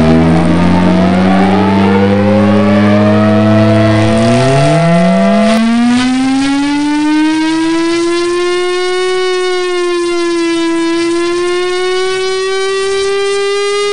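A loud, siren-like wailing tone with many overtones. At first several tones glide over one another. About four to six seconds in, one tone slides upward and then holds, wavering slightly.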